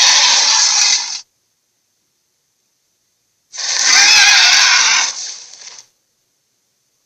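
Two harsh, raspy screeching calls of a dragon sound effect with dead silence between them: the first cuts off about a second in, the second starts about three and a half seconds in, lasts about two seconds and trails off.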